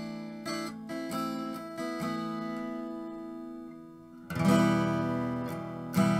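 Acoustic guitar played solo: picked notes ring and slowly fade for about four seconds, then a loud full strummed chord comes in, followed by another strong strum near the end.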